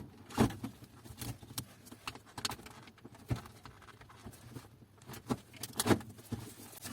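Irregular small clicks and rustling of hands working at a printer developer unit's plastic housing as the plastic stickers are peeled off, with a few sharper clicks about half a second in and again near the end.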